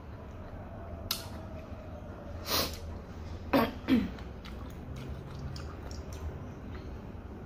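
Person eating fried noodles: a slurp about two and a half seconds in, then two short slurps falling in pitch soon after, with chewing and a few light clicks in between.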